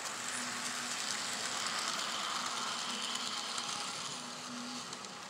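N scale model train running past close by: the small electric motor whirring and the wheels rattling and clicking over the track, swelling and then easing a little near the end.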